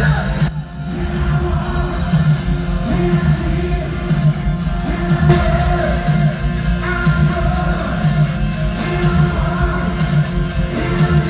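Live rock band playing in an arena: electric guitars, drums and a sung lead vocal over the PA, with the hall's echo. The music dips briefly about half a second in, then carries on.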